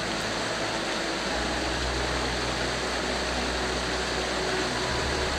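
Montmorency Falls rushing: a steady, even noise of falling water.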